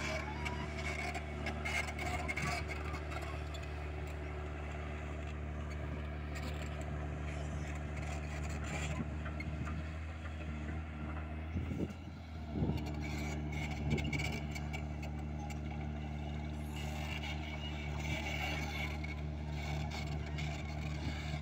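Diesel engine of a tracked hydraulic excavator running steadily under load as the machine climbs a steep dirt ramp. About twelve seconds in the engine note briefly dips and shifts in pitch, then settles again.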